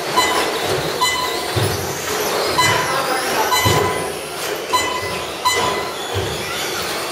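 Traxxas Slash short-course RC trucks racing on a carpet track: several motors whining, rising and falling in pitch with the throttle, over tyre noise. Short beeps sound every second or so.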